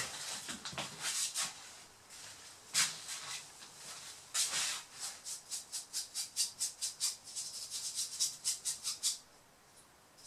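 A small brush scrubbing dust out of a laptop's dust-clogged cooling heatsink. Irregular scratching strokes at first, then a quick, even run of about three strokes a second that stops shortly before the end.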